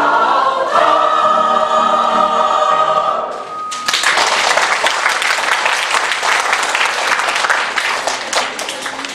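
A mixed choir sings the end of a piece, closing on a long held chord that cuts off about three and a half seconds in; the audience then applauds.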